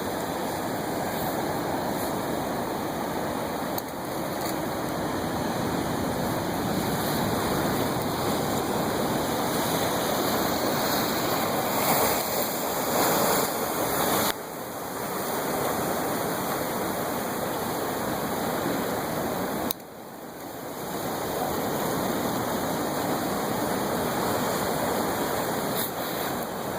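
Steady rushing of ocean waves and surf, with sudden dips in level about fourteen and twenty seconds in.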